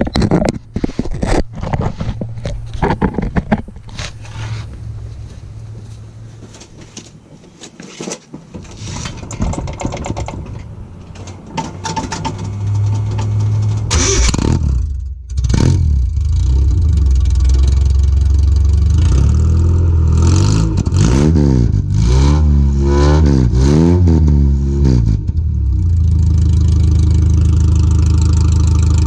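1986 Nissan 720 pickup's engine running on open headers with no exhaust pipe fitted, very loud. A few knocks and clicks come first. The engine catches about halfway through, is revved in several quick rising-and-falling blips, then settles back to a steady idle.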